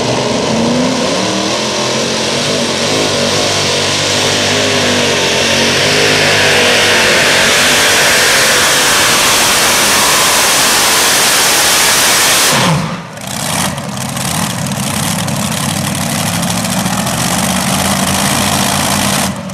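Multi-engine modified pulling tractor with supercharged engines running at full throttle under load down the track. About 13 seconds in, the throttle is cut and the engines wind down sharply, then settle to a quieter idle.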